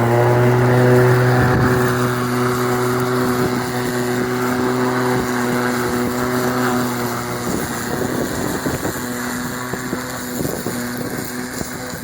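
Murray Twin cordless lawn mower's battery-powered electric motor and blade running at a steady hum, just spun up to speed. Irregular crackling and rattling join in over the second half.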